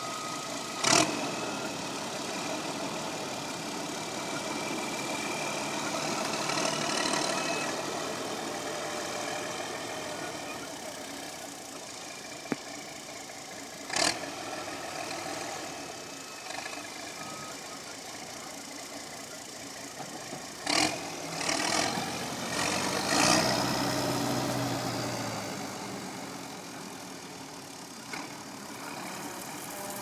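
Landini 14500 tractor's diesel engine running steadily under load while pulling a mounted reversible mouldboard plough through stubble, growing louder and fading as it passes. A few loud sudden knocks cut through it, clustered near the middle and just after.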